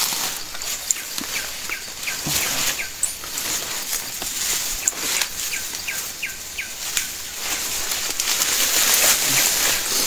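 Forest birds chirping, with short high calls scattered through, over a steady rustle and crackle of leaves and branches.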